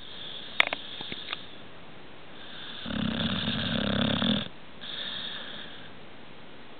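A sleeping pet snoring: one loud, buzzing snore about three seconds in, followed by a softer breath. A few sharp clicks come in the first second or so.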